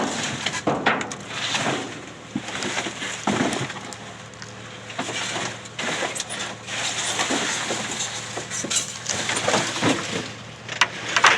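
Rummaging through trash in a dumpster: irregular rustling, crinkling and knocks of bags and boxes being shifted and tossed about.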